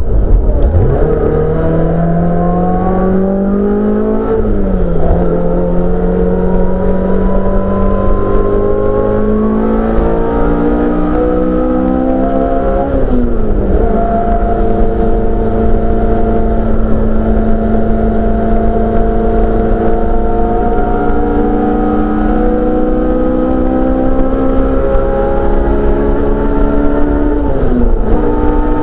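Honda S2000 F20C inline-four engine in a Mk2 Ford Escort race car at high revs under load, heard from inside the cabin; the pitch climbs slowly, with sharp drops about 4, 13 and 28 seconds in.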